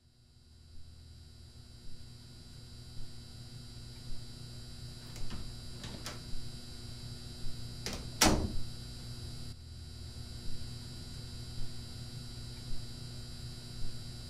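Steady electrical room hum with a few fixed tones, carrying a soft regular pulse about once a second. A sharp knock stands out about eight seconds in.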